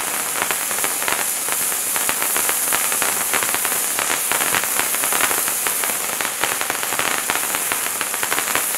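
Bright Star Wizards Wands hand-held fountain firework burning: a steady hissing spray of sparks, peppered with many rapid small crackles.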